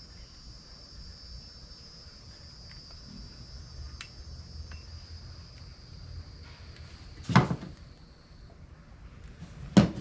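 A steady, thin high-pitched electronic whine that stops about eight and a half seconds in, with two sharp knocks of handling, the loudest sounds, about seven and a half seconds in and again near the end.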